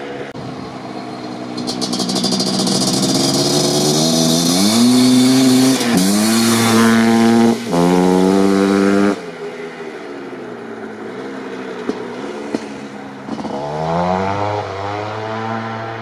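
Suzuki LT500R Quadzilla's 500cc single-cylinder two-stroke engine, fitted with an FMF Fatty expansion pipe and Powercore silencer, revving hard at wide open throttle. The pitch climbs in surges, with two short dips as the revs catch again. The throttle is chopped suddenly about nine seconds in, and a fainter rev climbs again near the end.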